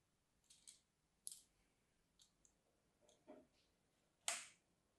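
Dry Palmolive bar soap being cut with a thin metal tool: a few faint, crisp cracking clicks, with the loudest and longest crack a little past four seconds in.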